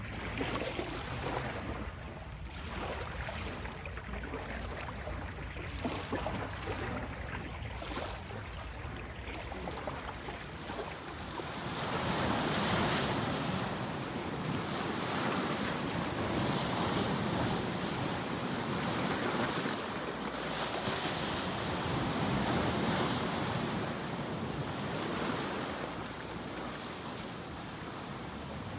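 Sea waves surging and breaking on the shore, with some wind. The surf is softer at first, then grows louder about twelve seconds in, swelling every few seconds as waves break.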